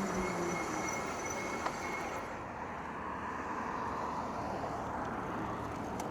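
Steady rumble of tyre and wind noise from an e-bike riding on pavement, with a faint high steady tone for the first couple of seconds and a single small click just under two seconds in.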